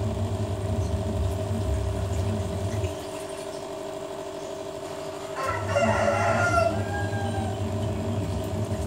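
A rooster crowing once, a little over five seconds in, over a low steady hum that drops out for a couple of seconds before the crow.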